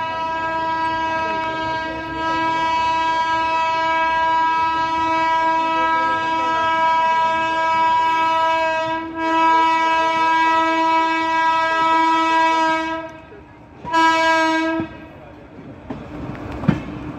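Indian Railways locomotive horn sounding one long steady blast of about thirteen seconds, then a short second blast about a second later. After it, train running noise with a couple of sharp clicks near the end.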